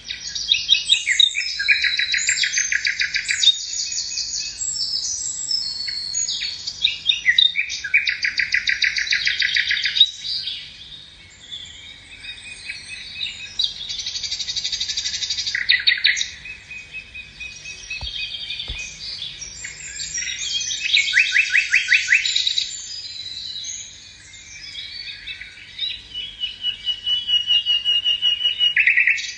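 A songbird singing a long, varied song of rapid trills and fast repeated notes, in phrases of a few seconds broken by short pauses.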